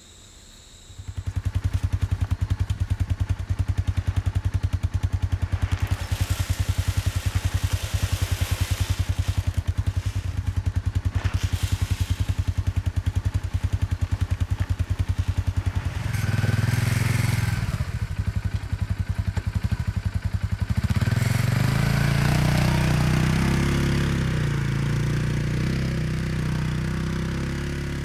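Polaris Ranger 570 UTV's single-cylinder engine idling with a steady, fast pulse, with a few clanks. About twenty seconds in, the engine pulls away and its sound slowly fades as the vehicle drives off.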